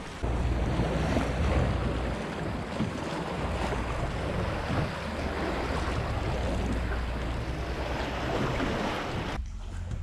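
Wind rumbling on the microphone over sea water sloshing and kayak paddle strokes in the water. The noise cuts off abruptly near the end.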